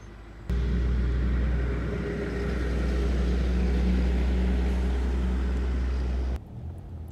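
Low, steady rumble of a vehicle engine with road noise. It starts abruptly about half a second in and cuts off abruptly shortly before the end.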